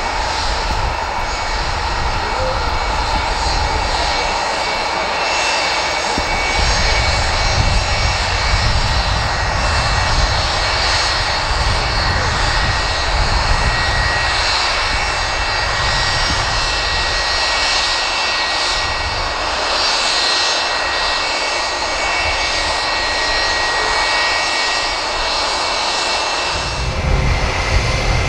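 Boeing 757 airliner's jet engines running loud and steady: a broad roar with steady high whining tones above it and a low rumble that swells and fades. Near the end the sound changes abruptly.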